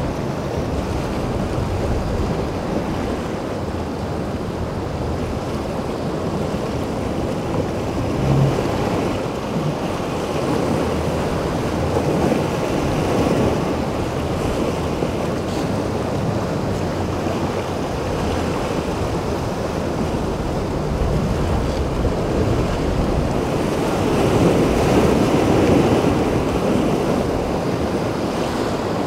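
Waves and surf breaking, with wind buffeting the microphone. The water swells louder about twelve seconds in and again near twenty-five seconds.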